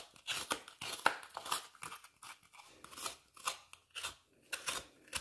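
A hand-held coconut scraper with a metal head, scraping the meat of a dried coconut out of its half-shell in quick, irregular short strokes, about two or three a second, each a crisp rasp as shreds come away.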